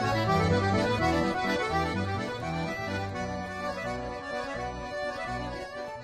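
Accordion music in a traditional style, with held chords over a moving bass line, gradually getting quieter.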